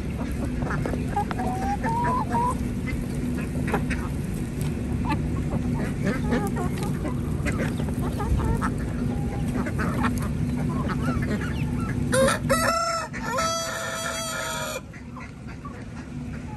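Ducks and chickens feeding from a plastic crate of mash, with scattered pecking clicks and brief soft calls. About twelve seconds in, a rooster crows loudly for two to three seconds, and the crow cuts off abruptly.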